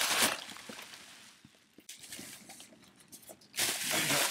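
Clear plastic wrapping crinkling and rustling as a cardboard box is pulled out of it. There is a loud burst at the start and another near the end, with fainter crackles between.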